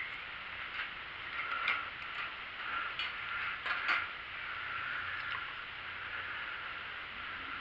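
Cloth rustling and a few light clicks as a towel is wrapped and pinned around a wire-mesh cat trap, over a steady background hiss.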